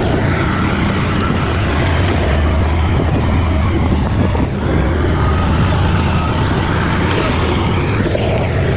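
Bulldozer's diesel engine running steadily under load, a constant low rumble.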